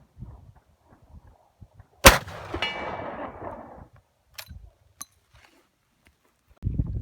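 A single shot from a .577/.450 Martini-Henry rifle loaded with black powder: one sharp crack about two seconds in, followed by a long rolling echo that dies away over about two seconds. Two short sharp clicks follow, and a low rumble starts near the end.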